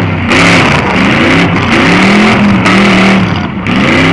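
Full-size demolition derby car engines revving hard, the pitch rising and falling over and over as the cars drive and push against each other in the arena.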